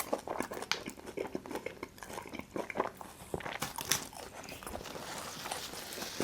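Close-miked chewing of a mouthful of Detroit-style pizza: an irregular run of crunches and mouth clicks, several a second.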